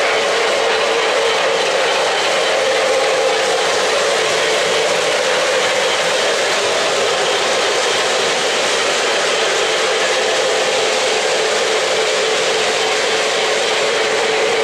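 O-gauge three-rail model trains running on the layout: a steady, even whir of the locomotives' motors and metal wheels rolling on the track.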